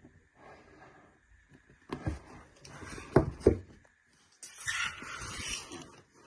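Hands handling packaging: a few sharp knocks about two to three and a half seconds in, then about a second and a half of scraping and rustling.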